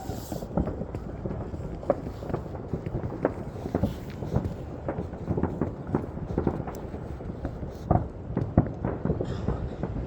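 Fireworks crackling: a dense, irregular run of sharp pops and cracks, several a second, with a few louder bangs near the end.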